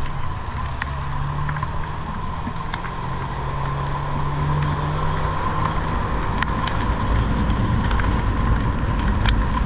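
Car on the move: a steady low engine and road rumble that swells slightly toward the end, with a faint steady hum and scattered light ticks over it.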